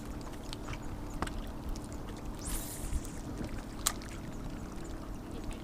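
Small fishing boat on a lake: water slapping and knocking against the hull over a steady low hum. There are scattered clicks, a brief rushing swell about two and a half seconds in, and a sharp knock near the four-second mark.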